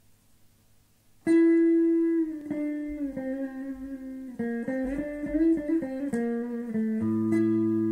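Background music with sustained plucked-string notes. It starts suddenly about a second in, after near silence.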